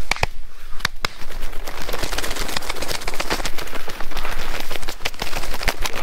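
Dry prairie grass and brush crackling and rustling as someone pushes through it on foot, a dense, irregular run of sharp snaps that thickens about a second and a half in.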